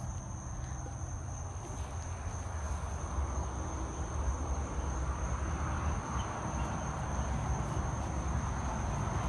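Crickets trilling in a steady high-pitched drone, with a low rumble underneath.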